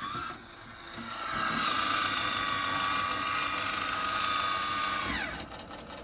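Maxxfan Deluxe roof vent fan, switched by touching its control wires together: a click, then the fan motor spins up into a steady whine, which falls in pitch and dies away about five seconds in as it is switched off again.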